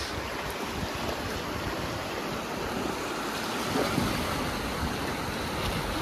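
Steady rushing of river water, with low wind rumble on the microphone.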